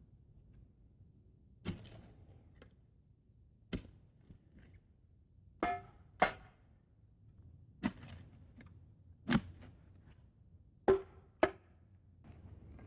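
Hand digging tool striking into the ground of a post hole, about eight sharp blows at uneven intervals, a couple of them in quick pairs.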